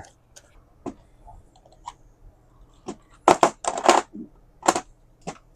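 Hand tools and small hard parts being handled, giving scattered light clicks and clatters, with a cluster of louder clacks about three to four seconds in.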